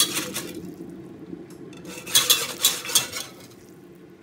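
Wire whisk clinking and scraping against the inside of a pot of hot broth as chicken stock is whisked in. There is a burst of rapid clinks at the start and another from about two seconds in to about three, quieter between and towards the end.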